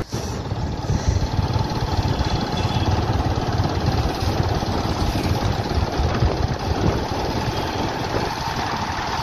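Motorcycle engine running while riding along, with steady wind and road noise on the microphone.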